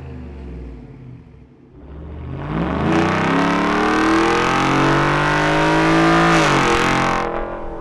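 Ford F-150's 5.0L Coyote V8 through a Corsa Xtreme straight-through cat-back exhaust, heard from outside at the tailpipe under hard acceleration. The note is softer for the first two seconds, then loud and climbing in pitch, and drops sharply about six and a half seconds in at an upshift.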